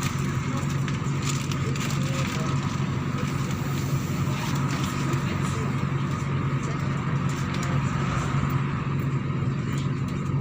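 MAZ-103 city bus running, heard from inside the passenger cabin: a steady low engine hum with road and cabin noise at an even level.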